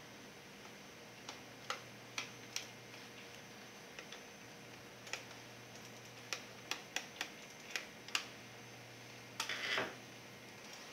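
Irregular small clicks and taps of tools and hands working on an Acer Aspire One netbook's plastic case during disassembly, with a short rattling clatter near the end.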